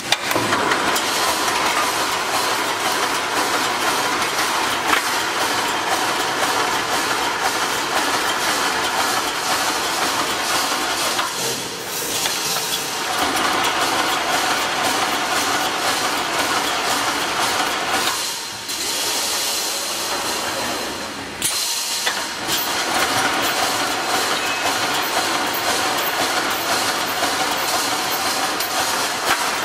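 Automatic reinforcing wire mesh welding machine running at speed, its welding head spot-welding cross wires onto the line wires: a steady hiss-like clatter full of rapid fine clicks with a few faint steady tones. The noise dips briefly twice, about a third and two thirds of the way through.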